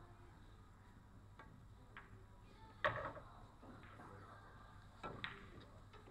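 Pool balls clacking: a handful of short, sharp clicks of cue tip on ball and ball on ball. The loudest comes about three seconds in, and two quicker ones follow about five seconds in.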